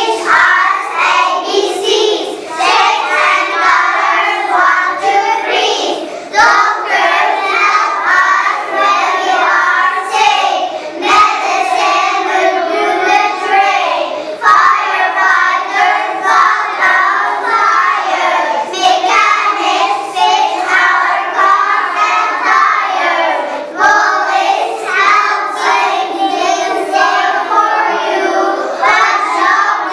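A group of young children singing a song in English together in chorus.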